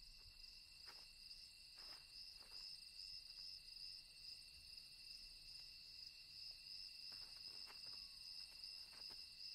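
Faint night-time chorus of crickets trilling steadily, with a few faint clicks.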